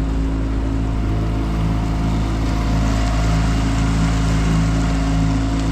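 Boat motor running at a steady speed with an even, unchanging drone.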